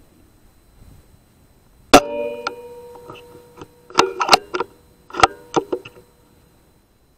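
An air rifle fires about two seconds in: a sharp crack followed by a metallic clang that rings on for about a second. A couple of seconds later come two quick clusters of sharp clicks and knocks.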